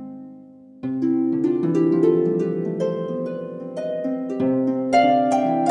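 Background instrumental music: a gentle melody of plucked-string notes that fades at the start, then a new phrase of notes comes in about a second in.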